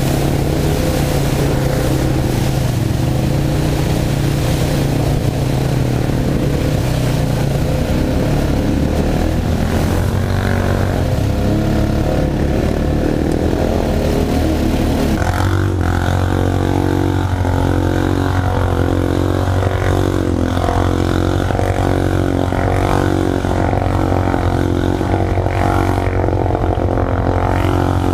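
A 2015 Honda Rancher 420 ATV's single-cylinder engine runs under way, mixed with a rushing hiss of wind and trail noise. About halfway through the hiss drops away abruptly, leaving a steadier, lower engine drone.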